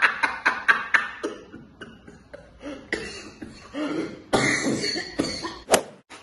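A person laughing in hoarse, cough-like bursts, in quick runs with short breaks between them. A sharp click near the end.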